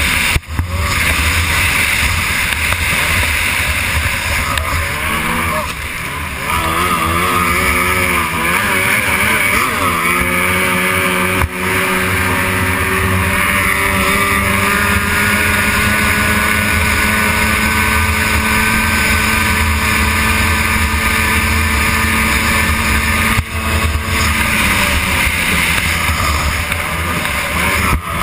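Racing outboard motor on a stock hydroplane running flat out. Its pitch wavers for a few seconds, then holds steady, then falls away near the end. Wind and spray rush over the boat-mounted microphone.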